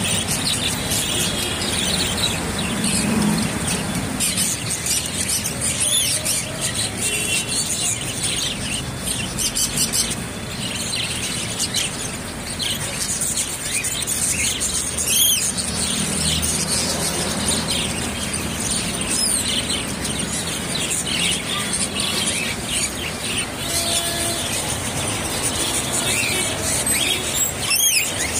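A crowd of caged budgerigars and zebra finches chirping and chattering without a break, with sharp squeals standing out about halfway through and again near the end.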